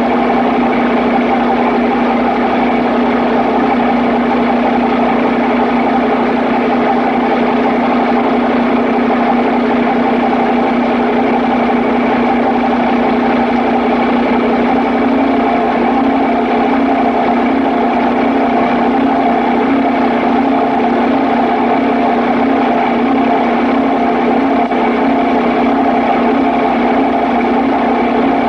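Engine running steadily at a constant speed: an even, unbroken hum with one strong low tone.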